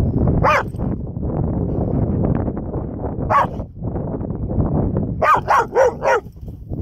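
Pit bull puppy play-barking at a turtle in short, high-pitched barks: one about half a second in, another a few seconds later, then a quick run of four near the end, over a steady low background rush.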